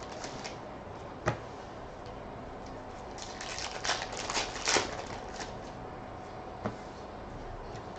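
Plastic wrapper of a baseball card pack being peeled open and crinkled, with the cards handled. A sharp tick comes about a second in, a run of crinkling in the middle, and another tick near the end.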